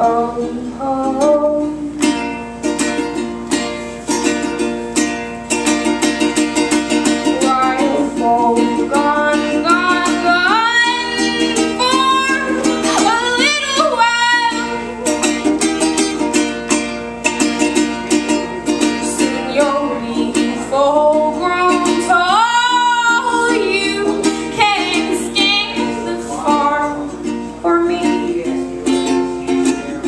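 A woman singing to her own strummed ukulele in a live solo song. The ukulele strums without a break, and her voice comes in for sung phrases a third of the way in and again about two-thirds through.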